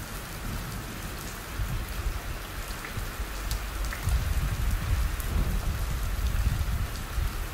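Steady rain falling on wet gravel ground, with scattered ticks of single drops. A low rumble swells about four seconds in.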